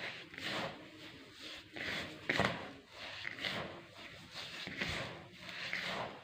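Hands rubbing coarse semolina and sugar together in a bowl: a rhythmic rustling swish, about two strokes a second, as the sugar is worked into the grain.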